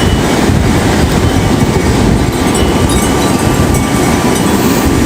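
Strong wind blowing hard, a loud continuous rumble buffeting the microphone.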